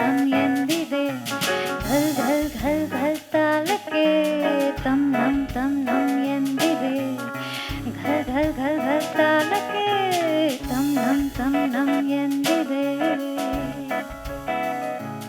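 Live band playing a jazz-style arrangement of an Indian song: a lead melody that slides and bends in pitch over guitar, bass and drums.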